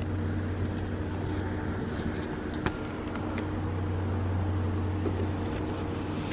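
A steady low mechanical hum, with a few faint taps and clicks as the mirror cable is worked down inside the door.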